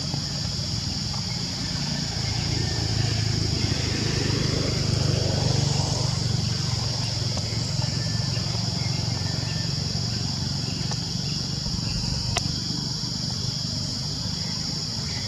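Outdoor ambience: insects droning steadily at a high pitch over a low engine rumble that swells and fades about three to six seconds in, like a vehicle passing, with one sharp click near the end.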